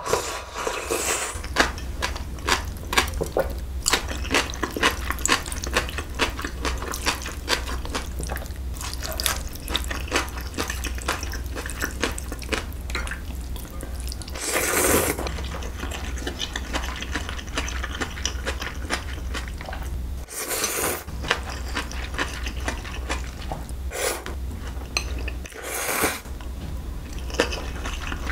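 Close-miked wet chewing and slurping of cold wheat noodles in broth (Busan milmyeon): a continuous run of small wet mouth clicks. A few longer, louder slurps come around the middle and near the end.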